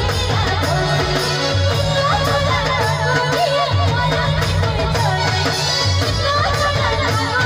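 Live jhumar folk music: a woman singing a wavering melody into a microphone, over keyboard and hand drums keeping a steady, repeating beat.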